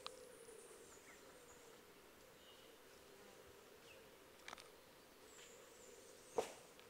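Faint insect sounds: a steady low buzz with a thin high-pitched insect chirring above it. A few short clicks break in, the loudest about six seconds in.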